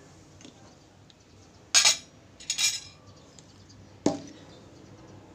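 A stainless-steel rice pot and utensils being handled: two short bursts of clattering and scraping a couple of seconds in, then a single sharp knock with a brief ring near the end.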